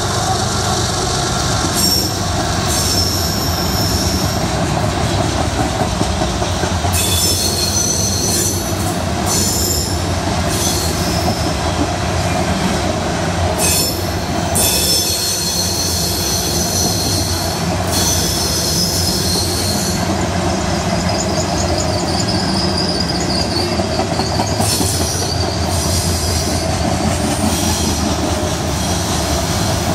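Loaded coal hopper cars of a long freight train rolling past, a steady rumble of steel wheels on rail. High-pitched wheel squeal comes and goes several times over it.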